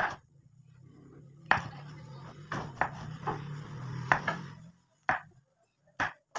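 Small kitchen knife cutting long beans into short pieces over a wooden chopping board: a series of sharp, crisp clicks at an uneven pace, about one a second. A low steady hum lies under the first part.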